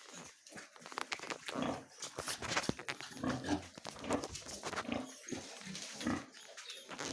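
Pigs, sows with their piglets, grunting and calling in many short, overlapping sounds.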